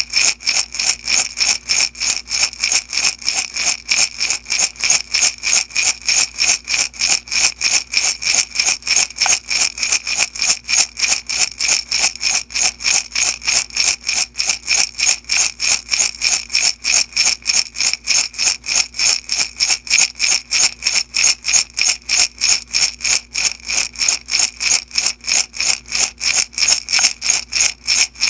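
Beads shaken in a glass jar, rattling in a fast, even rhythm of quick strokes without a break.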